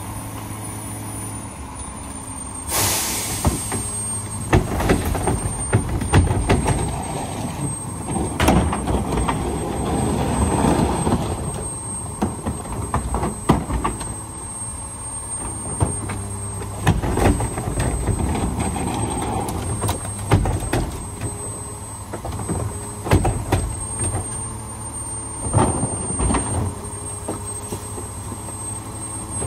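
Rear-loader garbage truck idling while trash carts are tipped and bags thrown into its hopper, with repeated bangs and thuds of carts and trash hitting the hopper. A short hiss about three seconds in.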